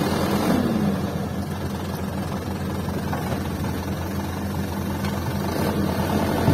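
Diesel engines of a loaded Mitsubishi Fuso dump truck and a crawler excavator running steadily at low revs.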